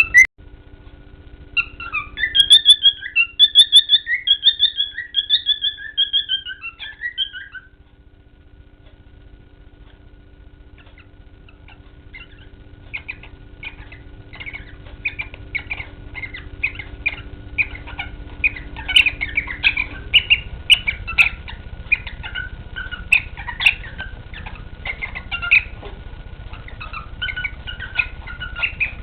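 Cockatiel mating call: a quick run of chirping whistles lasting about six seconds, then after a short pause a long stretch of short chirps and squawks that grows busier in the second half.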